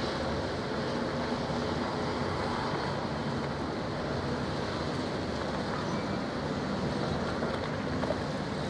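Twin diesel engines of a Severn-class lifeboat running slowly, a steady low drone mixed with the rush of water washing along the hull.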